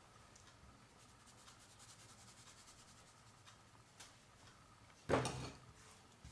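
Faint light tapping as powdered milk is shaken through a small metal sieve into a pan, then one louder knock of a utensil in the pan about five seconds in.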